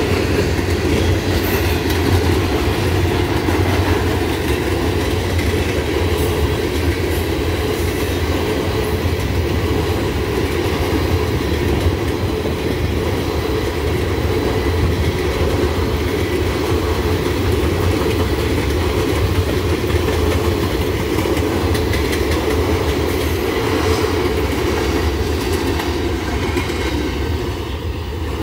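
Empty covered hopper cars of a freight grain train rolling past at about 28 mph: a steady, loud rolling noise of steel wheels on the rails, which begins to fall away near the end as the last cars go by.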